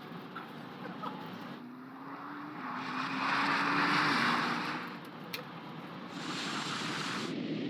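A car driving: road and wind noise swelling and fading, with a steady hum that rises slightly and then drops about four seconds in.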